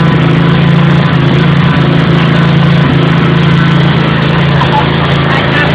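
Lawnmower engine running steadily at a constant speed.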